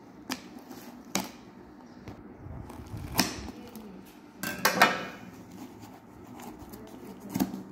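Scissors cutting through the packing tape on a cardboard shipping box: a handful of sharp snips and scrapes, the loudest cluster about five seconds in.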